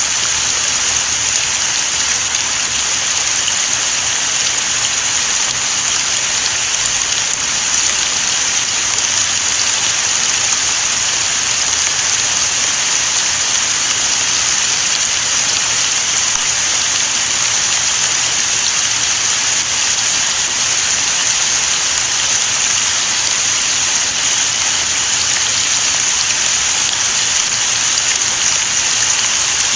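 Steady rain falling, an even hiss that doesn't let up.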